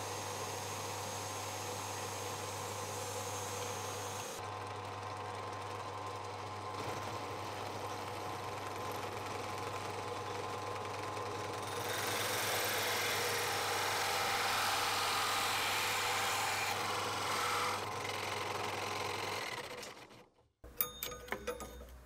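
Benchtop drill press running, boring into plywood with a forstner bit and then, about twelve seconds in, cutting through with a hole saw, which is louder and rougher. The motor stops shortly before the end, followed by a few clicks and rattles of handling.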